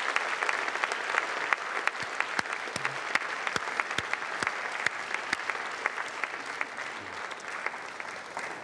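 A large audience applauding, many hands clapping together in a steady dense patter that eases slightly toward the end.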